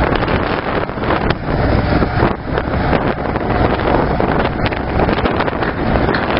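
Diesel engine of a Hitachi Zaxis 210LC long-reach excavator running steadily, with heavy wind buffeting the microphone.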